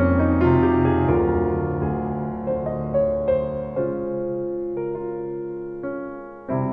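Background piano music with slow, held chords.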